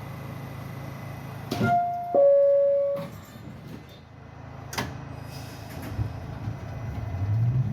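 R68A subway car door chime: a two-note descending ding-dong about a second and a half in, followed by sharp clunks of the doors closing. Near the end the traction motors start to rise as the train begins to pull out.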